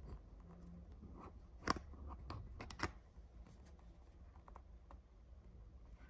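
A few light clicks and taps over a faint, steady low hum. Two sharper clicks come a little under two seconds in and about a second later.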